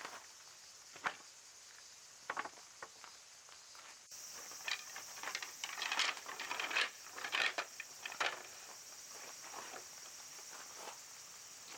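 Irregular light rustling and tapping, busiest in the middle, over a steady high-pitched hiss that turns louder with an abrupt change about four seconds in.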